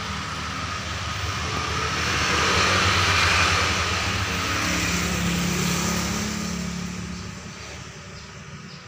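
A motor vehicle's engine passing on the road, growing louder to a peak about three seconds in, then fading away near the end.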